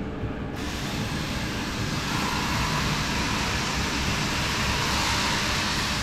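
Steady low mechanical rumble of running shop machinery, with a loud even hiss that starts abruptly about half a second in and holds until near the end.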